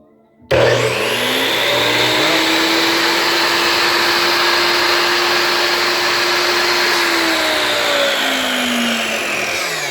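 Mastercraft 12-inch sliding compound mitre saw switched on and run with no cut: its motor starts suddenly about half a second in, spins up to a loud steady whine, then after about seven seconds is released and winds down with falling pitch.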